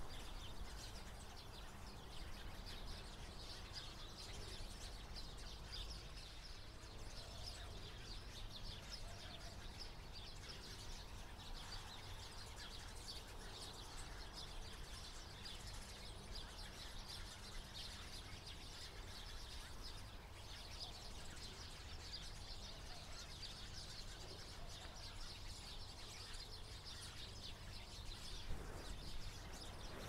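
Many small birds chirping together in the trees, a dense unbroken chatter of short high notes, over a low rumble of wind or handling noise.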